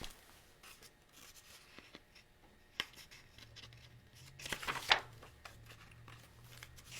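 Paper handling: the pages of a picture book rustling and being moved, with a few light clicks and a louder rustle about four and a half seconds in.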